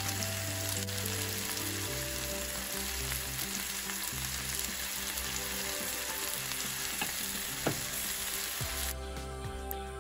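Marinated chicken legs sizzling steadily in oil in a cast-iron skillet over medium-low heat; the sizzle cuts off sharply near the end.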